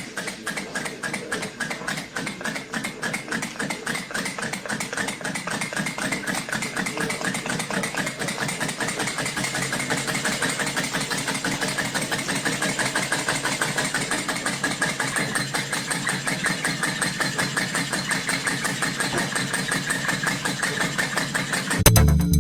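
Steam engine running, its rhythmic exhaust beats with a hiss gradually quickening.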